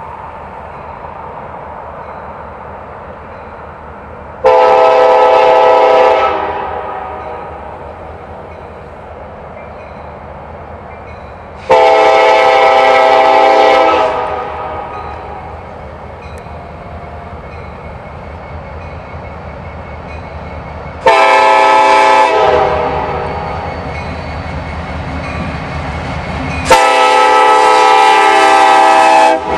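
Locomotive air horn sounding four blasts, long, long, short, long, with the last held longest: the standard grade-crossing signal. A steady train rumble runs beneath.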